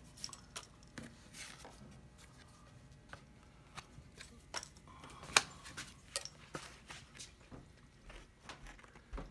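Scattered light taps, clicks and faint paper rustles as a card template and pencil are handled against a carved wooden half hull, with one sharper click about five seconds in.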